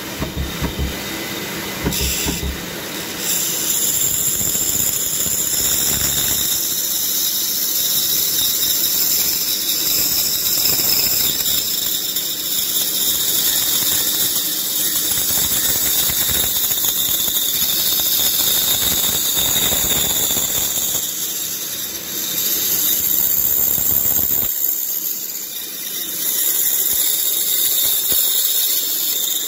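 Pégas fine-cut band saw with a fine blade cutting a very thin slice off a block of wood, a high, steady whine and hiss. It grows louder about three seconds in and eases briefly twice near the end.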